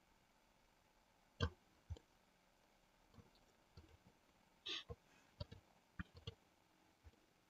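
Faint clicks of a computer mouse and keyboard, about a dozen at uneven intervals over near silence.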